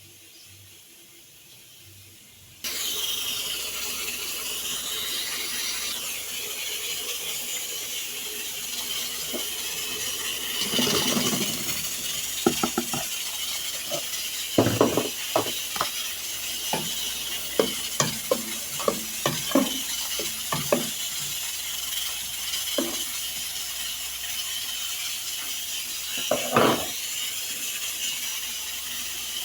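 A spoon scraping and knocking against a cooking pan as a thick banana mixture is stirred, in irregular strokes. A steady cooking hiss starts suddenly a few seconds in and runs underneath.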